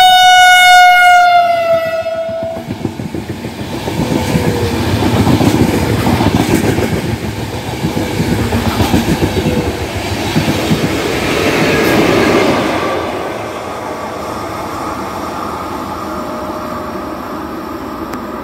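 Passenger train sounding one long horn blast that sags slightly in pitch over about two and a half seconds. Its coaches then pass close with loud rumble and rhythmic wheel-on-rail clatter, and the rumble eases to a steadier, quieter noise about halfway through as the train moves away.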